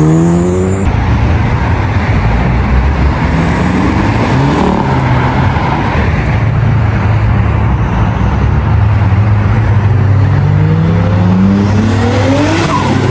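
Performance cars accelerating away one after another, their engine notes climbing with the revs several times, loudest as one passes near the end, over a steady low engine drone.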